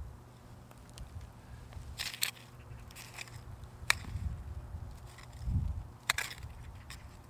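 Digging by hand in dry, loose soil with a small hand hoe and gloved hands, lifting out Chinese artichoke tubers. A few short, crisp scrapes and clicks come about two seconds in, again near four seconds and near six seconds, with a dull thump just before the last.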